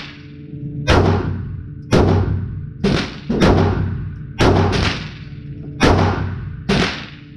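A 9mm Taurus G3c pistol fired eight times at a steady pace of about one shot a second, two of them close together a little after the middle. Each report rings out in the echo of the indoor range, over a steady low hum.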